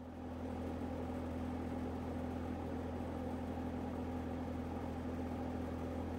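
Steady mechanical hum of a running motor, an unchanging low drone with a constant pitched tone over it.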